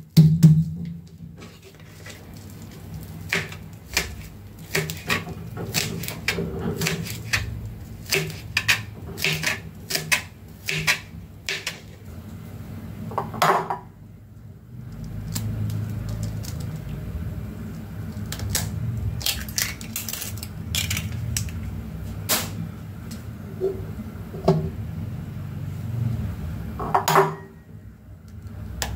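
Kitchen knife chopping and mincing garlic on a cutting board in a run of quick irregular knocks, ending with a ringing knock about halfway through. Then eggs are cracked and their shells pulled apart over a ceramic bowl, with a ringing knock on the bowl near the end.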